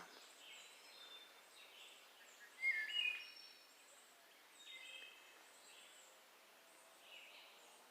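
Scattered bird calls and chirps over quiet woodland background noise, the loudest a short call about two and a half seconds in and another about five seconds in.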